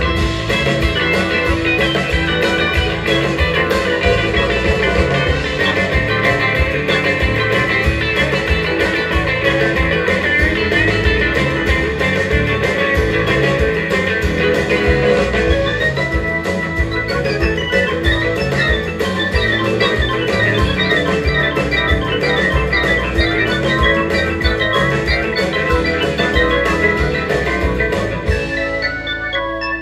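Live rautalanka band (twangy instrumental electric-guitar rock) playing, with drums and electronic organ. The drums stop near the end, leaving held organ notes.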